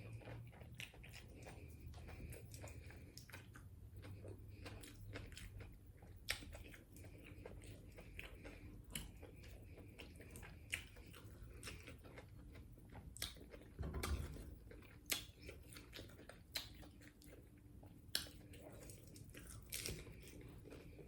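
Close-miked chewing and biting of tacos, faint, with many short crisp clicks and crunches scattered throughout. There is a dull low thump about fourteen seconds in.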